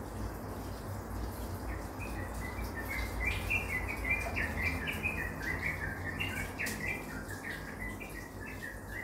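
A small bird twittering: a fast run of short, high chirps starting about two seconds in, over a steady low background rumble.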